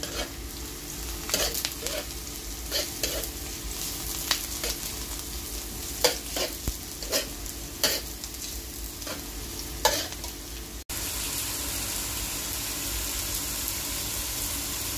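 Sliced onion and garlic sizzling in oil in a wok, with a metal spoon scraping and tapping the pan again and again as it stirs. About eleven seconds in, the sound cuts to a steadier, louder sizzle of chicken pieces frying.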